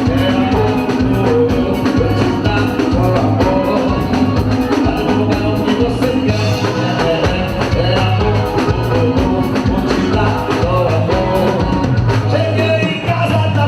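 Forró band music played loud: a singer over a steady drum beat and band.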